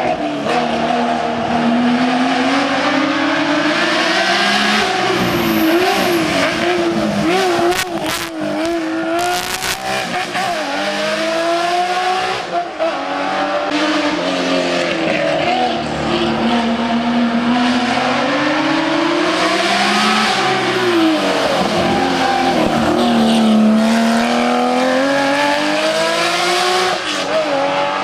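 Race car engine at full throttle on a hillclimb, its pitch rising through the revs and dropping back again and again with gear changes and lifts for corners.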